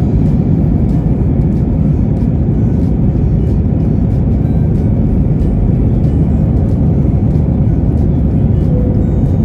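Steady low roar of a jet airliner's engines and airflow, heard from inside the passenger cabin.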